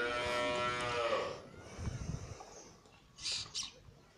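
A cow mooing once, a long call of about a second and a half that drops in pitch as it ends. Near the end come two short hissing sounds.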